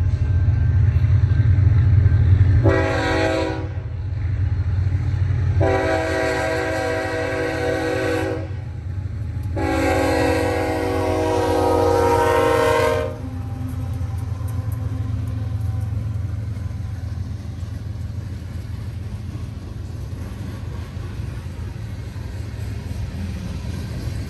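Freight train horn, a Nathan K5HL chime on a BNSF ES44C4 diesel locomotive, sounding for a grade crossing: one short blast, then two long ones. Under and after it the locomotive's diesel engine and the train rumble steadily as the train approaches and passes.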